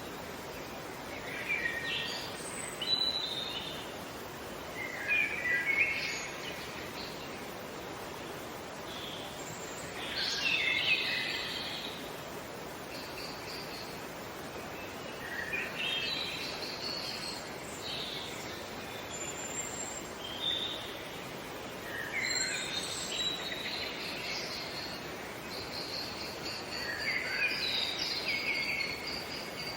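Songbirds singing short, quick, twittering phrases every few seconds over a steady outdoor background hiss. Near the end a steady high insect trill comes in.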